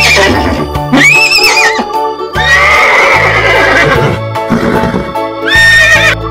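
Horse whinnying several times, each call wavering in pitch, the longest about two and a half seconds in, over steady background music.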